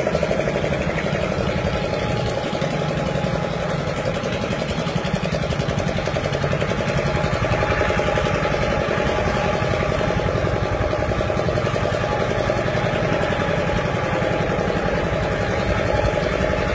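An engine running steadily with a rapid, even chugging.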